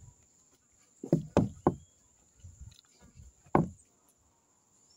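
Dull knocks of a plate being moved and set down on a table: three quick knocks a little after a second in, and one more at about three and a half seconds.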